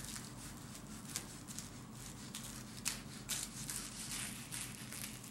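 Knife cutting through crisp, flaky baked puff pastry: faint crackling and crunching as the layers break, with a few louder crackles about a second in and around three seconds in.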